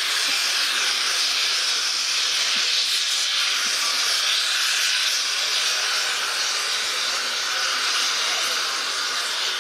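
ČSD class 354.1 steam locomotive 354.1217 venting steam with a steady, loud hiss.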